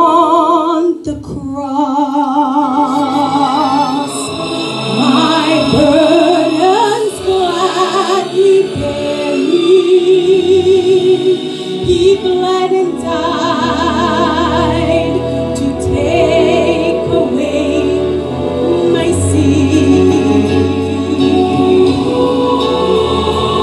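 A woman singing a gospel song into a handheld microphone, amplified through the hall's sound system, with a wide vibrato on her held notes.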